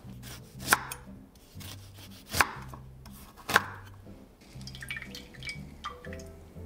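A knife cutting a lime into wedges on a wooden chopping board: three sharp cuts a second or so apart. Then come small, wet crackling clicks as a lime wedge is squeezed by hand.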